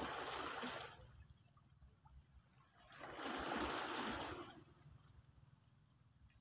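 Small sea waves washing against a rocky seawall, in two soft swells of water noise that rise and fall, with a low steady rumble underneath.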